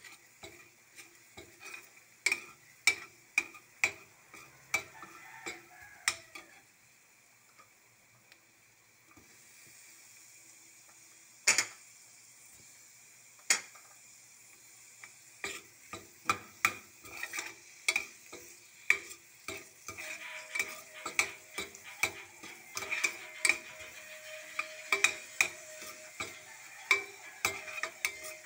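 Metal spoon clacking and scraping against a stainless steel frying pan while minced garlic, then sliced red onion, is stirred in hot oil, over a light sizzle. The clicks come about twice a second at first, stop for a few seconds, return as two loud single knocks, then come quickly and steadily; the sizzle grows louder from partway through.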